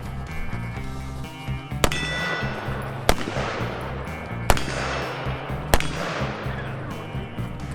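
Four single shots from an 11.5-inch AR-15 pistol, spaced about a second and a half apart, each followed by a trailing echo, over background music.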